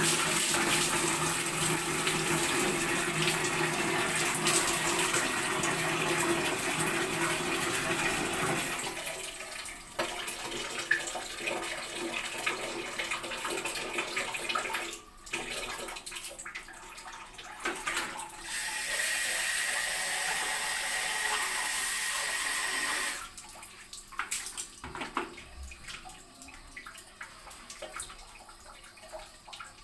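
Water poured from a plastic mug over long hair, splashing steadily onto the bathroom floor for about the first nine seconds, then lighter splashing. Water runs steadily again for about five seconds and cuts off about 23 seconds in, leaving faint drips and hand sounds as shampoo is worked into wet hair.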